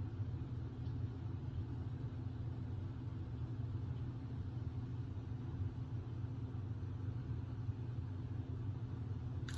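Steady low rumble, an even background hum that holds without change, with a single faint click just before the end.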